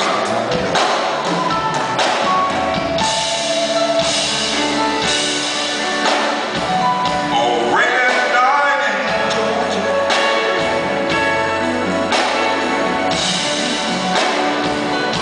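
Live smooth-jazz band playing a slow ballad instrumental, led by a hollow-body electric guitar over keyboard, bass and drums, with sliding guitar notes about halfway through.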